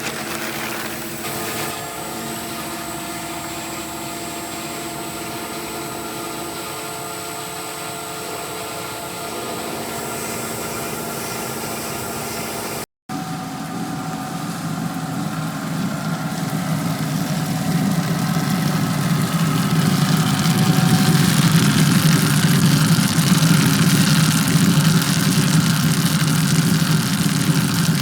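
Stone-grinder chocolate melanger running: a steady machine hum with several fixed tones, then, after a brief cut about halfway, a louder, rougher noise that builds over a few seconds and holds steady.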